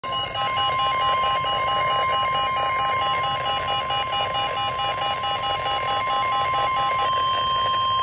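Midland NOAA weather alert radio sounding its alarm: a steady single-pitched warning tone with rapidly pulsing beeps over it. The pulsing stops about seven seconds in, and the steady tone runs on a moment longer. This is the weather radio alert tone that comes before a severe thunderstorm warning is read out.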